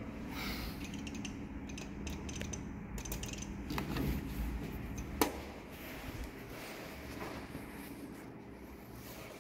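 1980 IFMA traction elevator arriving while its doors are opened by hand: a run of clicks and clatter, a rumble, then one sharp metallic clack about five seconds in, over a steady low hum.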